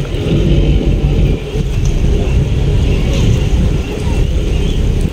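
Boat engine running steadily, a dense low rumble.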